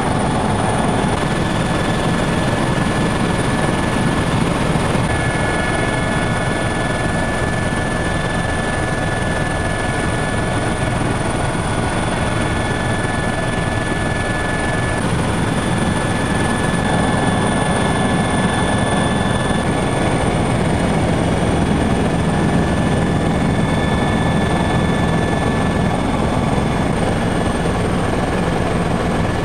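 Helicopter in steady cruise flight, heard from inside the cabin: a dense, even din from the rotor and engine, with thin high whining tones held steady over it.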